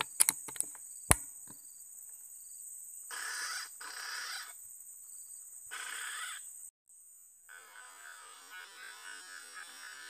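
Insects droning in a high, steady tone that cuts off suddenly about two-thirds of the way through. Three louder buzzing bursts come before the cut-off, and a busier, lower buzzing follows it. A few sharp clicks sound near the start, the loudest about a second in.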